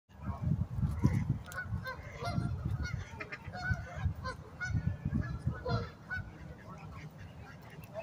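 Geese honking repeatedly in short calls, thinning out after about six seconds, over a low, uneven rumble.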